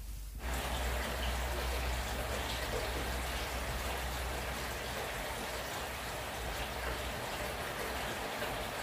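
Steady rain, an even hiss that sets in about half a second in, with a low hum underneath that drops away near the end.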